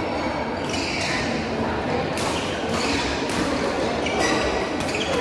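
Badminton rackets striking a shuttlecock during a fast doubles rally, several sharp hits over a steady background noise of the hall.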